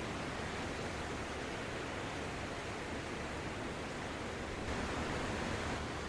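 Sea waves washing onto a beach: a steady hiss of surf that swells a little near the end.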